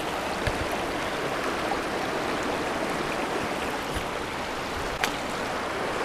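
Steady rush of river water tumbling over rocks below a bridge spillway, with a few faint knocks.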